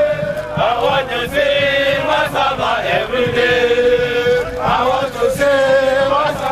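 A marching column of military cadets singing a marching song together, the voices holding long notes that step up and down in pitch.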